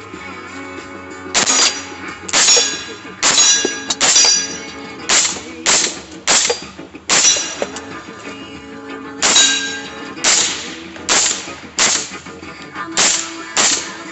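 A string of about fourteen gunshots fired in quick succession, with a short pause midway. Several shots are followed by a brief high ring. Background music plays beneath.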